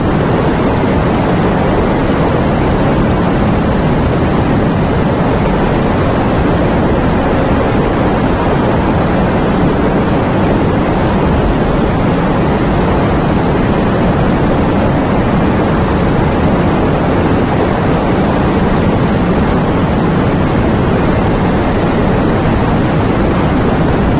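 Heavy rain pouring down with wind, a dense steady rushing that holds level throughout.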